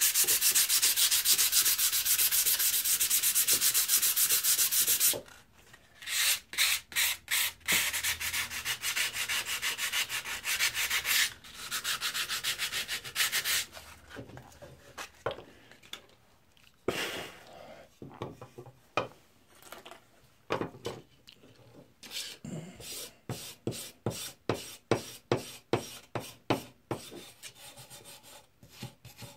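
Sandpaper rubbed quickly back and forth by hand over the rusty steel blade of an old drawknife to take off the rust. It starts as fast continuous scrubbing, breaks into separate strokes after about five seconds and turns quieter in the middle, then ends in a quick run of short, separate strokes.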